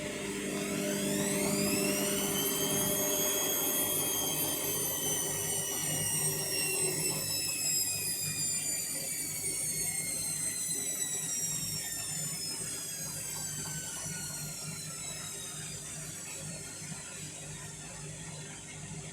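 Indesit washing machine motor during the final spin. Its whine rises sharply over the first two seconds or so, then falls slowly and steadily as the drum slows down.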